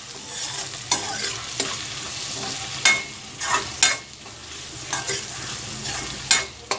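Metal spoon stirring onions and mutton pieces sautéing in a metal kadai over a steady frying sizzle. The spoon scrapes and clinks against the pan at irregular intervals.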